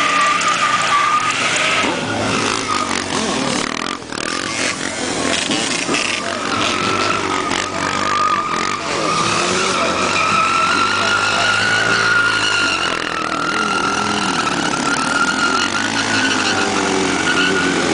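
Honda sport bike held at high revs while its spinning rear tyre squeals in a stunt-riding burnout. The high, steady squeal runs throughout, with the engine note rising and falling beneath it.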